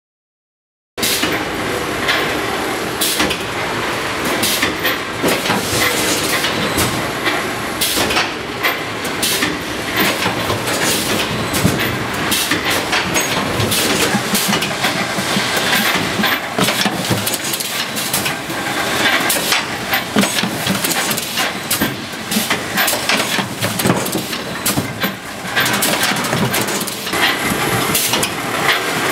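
Automatic packaging machinery running on a production line: a steady mechanical din with frequent sharp clacks and knocks, starting about a second in.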